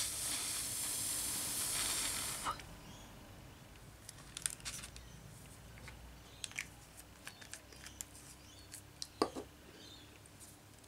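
A long breath blown through the lips onto wet alcohol ink to push it across the sheet: a steady hiss of about two and a half seconds. After it come a few small clicks and taps from handling, with one sharper knock near the end.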